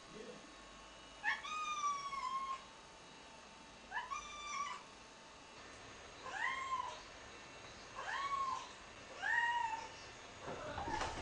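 Domestic tabby cat meowing at a closed door, five times: two long calls, then three shorter ones that rise and fall in pitch.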